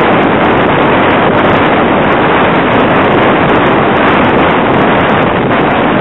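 Steady road and wind noise of a moving car, heard from inside the cabin.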